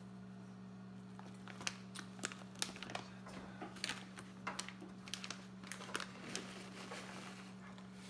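Package of frozen shredded cheese crinkling as it is handled and the lumps are broken up: irregular rustles and clicks over a steady low hum.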